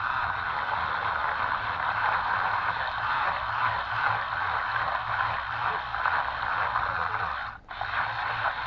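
Twin small 130-size DC motors of a radio-controlled toy boat running, a steady buzzing whirr with water churning at the propellers, cutting out for a moment near the end and picking up again.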